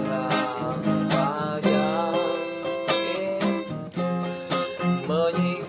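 Acoustic guitar strummed in a steady rhythm, with a voice singing long, wavering held notes of an Indonesian reggae song.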